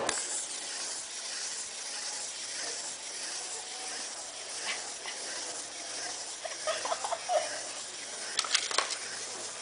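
A wind-up walking skeleton toy's clockwork mechanism running as it walks across a hard tabletop, against a steady background hiss with faint voices. A few sharp clicks come near the end.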